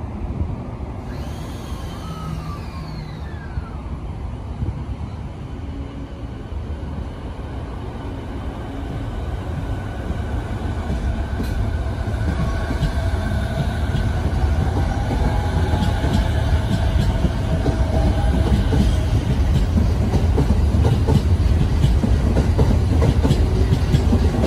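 JR 209 series electric commuter train pulling away from the platform and accelerating. Its motor whine climbs in pitch and the train grows steadily louder as the cars roll past, with the wheels clicking over the rail joints.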